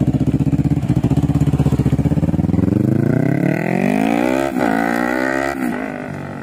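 Yamaha R3 parallel-twin with an Akrapovic full-system exhaust running at a steady, even beat, then accelerating away with the pitch climbing and dropping twice at gear changes, about four and a half and five and a half seconds in. It fades as the bike moves off.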